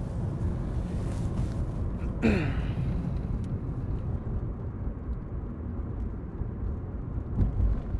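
Steady low rumble of a car's engine and tyres, heard from inside the cabin while driving, with a short falling vocal sound about two seconds in.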